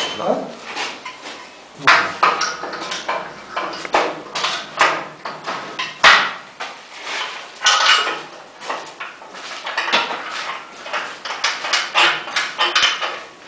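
Steel parts of a rendering machine being handled and fitted: irregular metallic clanking, rattling and knocks, with one sharp knock about six seconds in.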